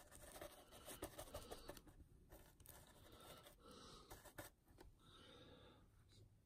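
Faint, irregular scratching and dabbing of a flat paintbrush working thick mud texture paste onto a model diorama base.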